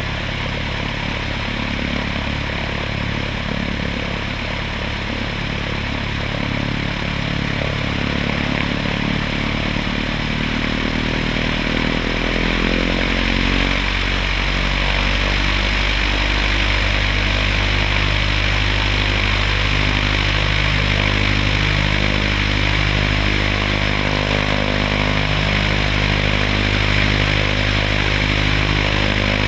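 Piper PA-28 Archer III's four-cylinder Lycoming engine and propeller idling, then revving up about a third of the way through and holding a steady higher speed. This is the pre-flight run-up for the left and right magneto check.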